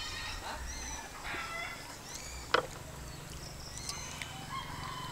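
Chickens clucking, with one sharp click about two and a half seconds in.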